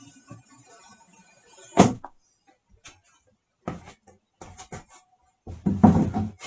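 A box being opened and handled: a sharp knock about two seconds in, scattered small clicks and scrapes, then a cluster of knocks and rustling near the end.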